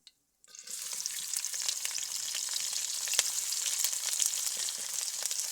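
Food frying in hot oil in a pan: a steady crackling sizzle with small pops, starting suddenly about half a second in.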